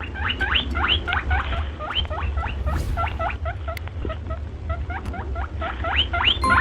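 A brood of chicks peeping: many short, high calls sweeping upward in quick succession and overlapping, over a steady low rumble.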